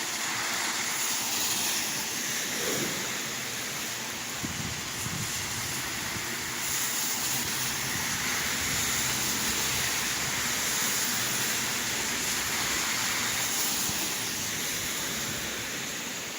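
Steady rain falling and splashing, an even hiss that swells and eases slightly.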